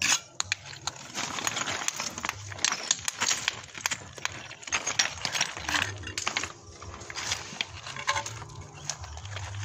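Thin natural stone cladding slips being set and knocked into place: irregular hard clicks and knocks of stone against stone, board and trowel, with short bouts of scraping.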